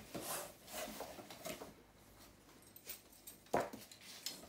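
Rustling and handling of a cardboard box and its contents, with scattered small clicks early on and one sharp knock about three and a half seconds in.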